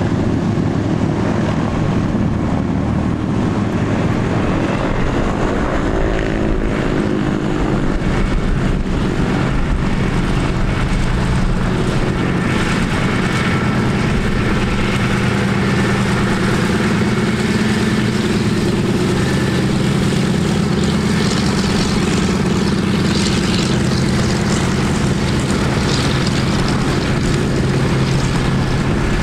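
Douglas DC-3-family transport aircraft's twin radial piston engines running steadily as the aircraft roll and taxi: a continuous low propeller drone, with a brief shift in pitch about six to eight seconds in.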